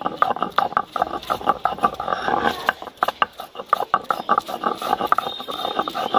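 Stone roller (nora) worked back and forth on a flat grinding stone (sil), crushing ginger and garlic into paste: rapid, repeated gritty scraping and knocking of stone on stone.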